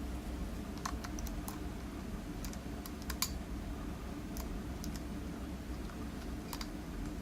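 Lock pick and tension wrench working the pins of a pin-tumbler challenge lock: light, scattered metallic clicks, about ten in all, as pins are probed and set, over a low steady hum.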